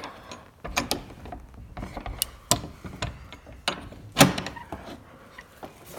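A door being handled and opened: a string of clicks, knocks and rattles, with the loudest knock about four seconds in.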